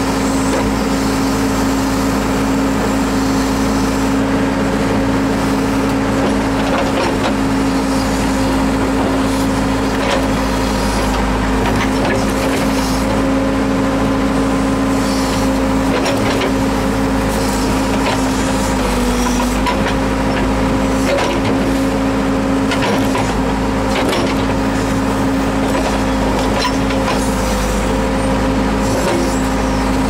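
Case 580L backhoe's turbocharged four-cylinder Cummins diesel running steadily at working throttle, with hydraulic whine, while the backhoe bucket digs mud. The pitch sags briefly about two-thirds of the way through as the hydraulics load the engine, with scattered clanks from the bucket and linkage.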